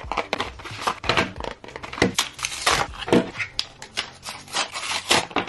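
Plastic blister packaging and its cardboard backing being pulled open and handled, a run of irregular crackles and crinkles with small taps.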